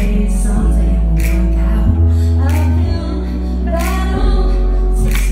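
Live band playing a pop song: deep bass notes held and changing every second or two under sharp drum and cymbal hits.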